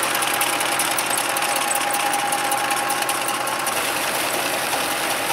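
Fiat 640 tractor's four-cylinder diesel engine running steadily at low speed, driving a tube-well pump through its PTO shaft and belt pulley, with a thin steady whine over the engine noise.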